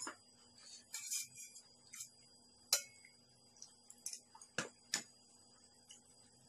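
Scattered light clinks and taps of a metal spoon and stir-fried surf clam shells against a plastic plate while eating, about seven or eight separate clicks with the sharpest a little before halfway.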